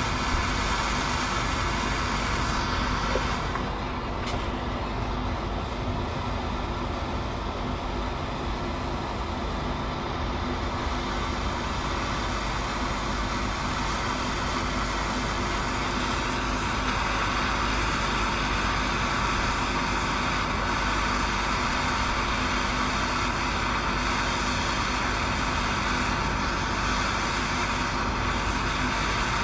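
Hand-held MAP gas torch burning with a steady hiss, its flame held on a seized bolt at the front hub to heat it loose.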